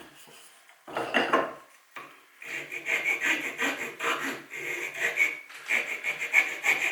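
Round file rasping back and forth across a small wooden toggle, cutting a groove for the cord. The quick strokes settle into a steady run about two and a half seconds in.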